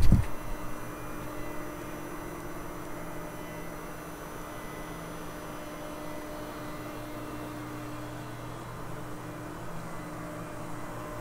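Steady hum of a powered-up Mori Seiki SV-500/40 CNC vertical machining center standing idle, a few even tones under faint hiss. A short, sharp low thump right at the start.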